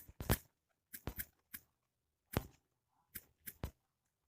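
Irregular short taps while typing on a smartphone's touchscreen keyboard, about ten in all.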